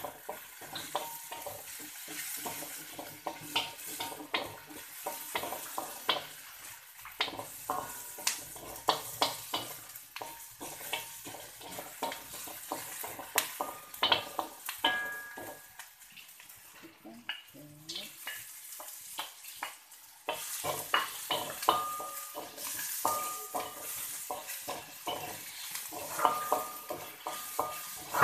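A spatula stirring and scraping sliced red onions as they fry in oil in a metal wok: quick irregular taps and scrapes against the pan, some of them ringing briefly, over a faint sizzle. It goes quieter for a few seconds in the middle.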